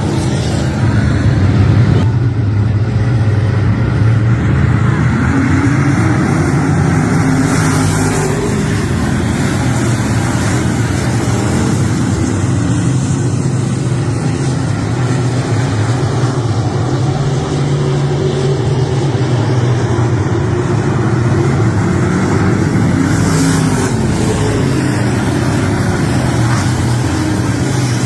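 Race car engine running at speed for the whole stretch, its pitch rising and falling every few seconds as it accelerates and backs off.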